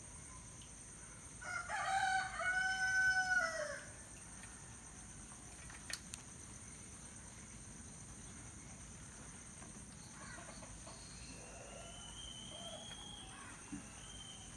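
A rooster crowing once, a call of about two seconds that holds and then drops at the end. Later comes a fainter, thin, high bird call over a steady high hiss.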